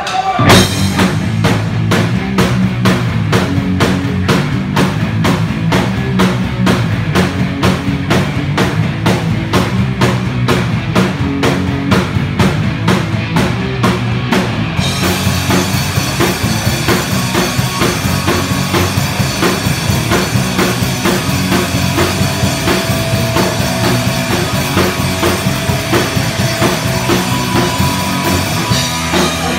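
Live punk rock band playing: two electric guitars, bass guitar and drum kit, with the drums keeping a fast, even beat. About halfway through, the sound fills out as the whole band comes in fuller.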